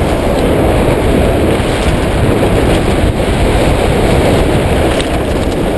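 Mountain bike rolling fast down a dirt trail: a continuous loud rattle and rumble of the bike and tyres over rough ground, mixed with wind buffeting the microphone.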